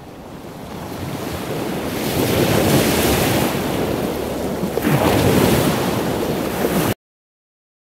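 Ocean surf washing on a beach, a steady rushing that builds over the first two seconds and swells with the waves about two and a half and five seconds in, then cuts off abruptly near the end.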